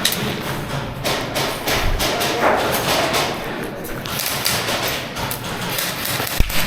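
HPA-fed KJW Glock 18C airsoft pistol firing single shots, a few sharp clacks spaced out a second or more apart.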